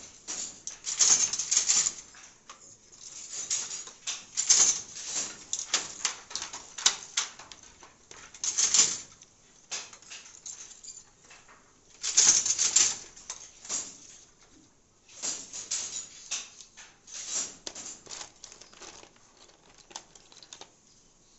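Wooden handloom clattering in irregular bursts of quick clacks and rattles every few seconds, as the batten and reed beat up the weft and the shuttle is passed.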